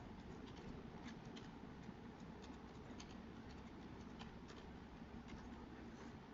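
Faint, irregular clicking of computer keyboard keys being typed, over a low steady hum.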